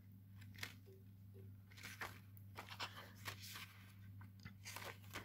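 Faint rustling and light clicks of thin plastic stencil sheets being handled and flexed, over a low steady hum.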